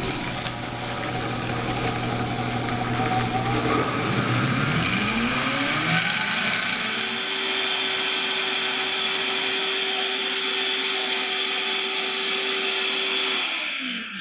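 Vitamix Professional Series blender blending a liquid smoothie: it starts at low speed, the motor pitch rises about four to six seconds in as the speed is turned up, then it runs steadily at high speed and winds down right at the end.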